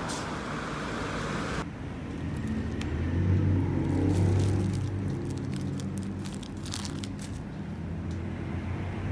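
A motor vehicle engine running close by on a street, growing loudest about three to four seconds in and then easing off.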